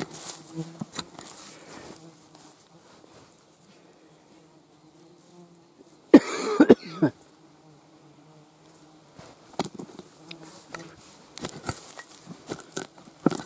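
A fly buzzing close by with a steady low hum, over scattered clicks and scrapes of a digging tool and gloved hands working stony soil. About six seconds in comes a loud, short scraping clatter of soil and stones.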